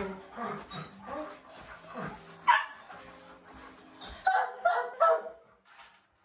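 Dogs barking and yipping, with loud barks about two and a half seconds in and again between four and five seconds in; the barking dies down near the end.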